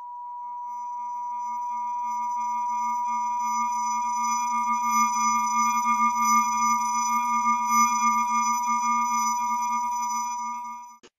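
Steady electronic drone of several held tones, one clear mid-pitched tone the loudest over a low hum. It swells up over the first few seconds, wavers slightly, and cuts off abruptly just before the end.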